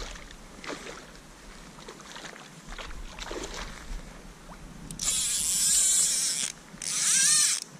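Fly reel's click-and-pawl drag buzzing in two loud bursts near the end, the first about a second and a half long and the second under a second, its pitch rising and falling with the speed of the line while a hooked trout is played. Faint splashing water in the first few seconds.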